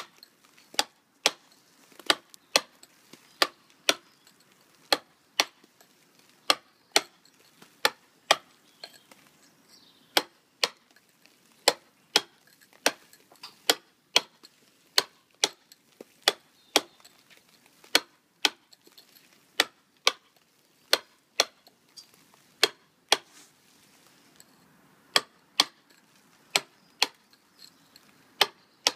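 A mason's chisel being struck again and again, cutting into sandstone to dress a stugged, tooled finish. The sharp knocks come in a steady working rhythm of about one and a half to two blows a second.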